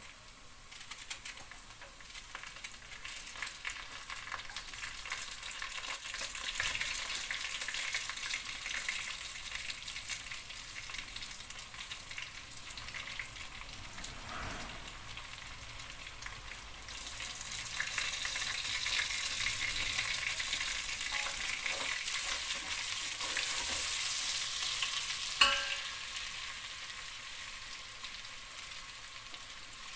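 Chunks of meat and freshly cut onion sizzling in hot oil in a steel pot, with a steady crackling hiss that grows louder for several seconds past the middle. Near the end there is one sharp clink.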